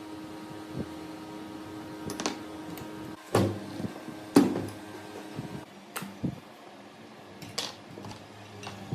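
Several sharp knocks and clatters at irregular intervals, like tools or parts being handled and set down, over a steady hum that stops about three seconds in.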